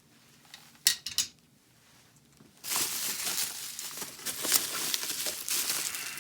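Two light knocks about a second in, then, from about two and a half seconds in, steady crinkling and rustling of packing material as a hand digs through a shipping box.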